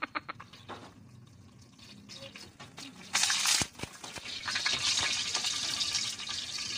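Garlic frying in hot cooking oil in a wok. About three seconds in there is a sudden short burst of spitting and spattering oil, followed by steady sizzling.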